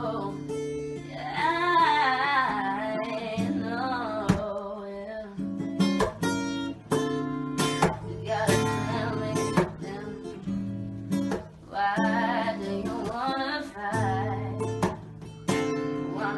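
Acoustic guitar strummed steadily, with singing that rises and falls in long runs over it near the start and again about twelve seconds in.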